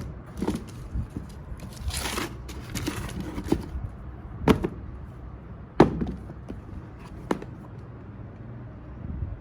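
Sneakers and their box being handled: a short rustle about two seconds in, then several sharp knocks and taps, the loudest near the middle.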